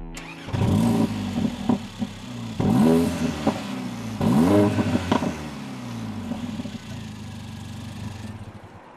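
Mercedes-AMG CLA 45's turbocharged four-cylinder engine revved three times, each rev rising and falling away with a sharp crack after it, then settling to idle.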